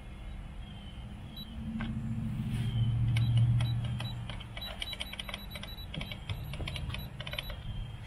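Rapid run of small clicks from the control-panel buttons of a Newair wine cooler being pressed to set it after repair. A low hum swells and fades again about two to four seconds in.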